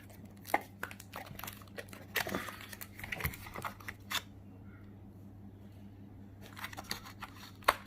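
Seal being torn and the small cardboard box of an Apple 18W USB-C power adapter opened by hand: scattered crinkles, rustles and light clicks. A pause of about two seconds comes midway, then more handling near the end, over a faint steady hum.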